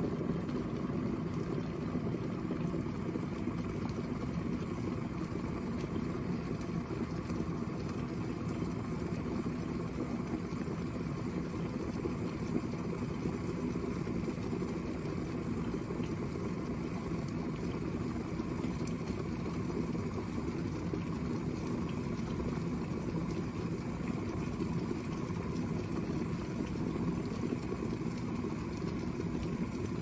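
Water at a full rolling boil in a glass electric kettle: a steady, low bubbling rumble.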